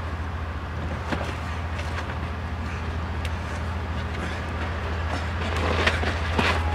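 A vehicle engine idling with a steady low rumble, with a few scuffs and knocks that come more often near the end.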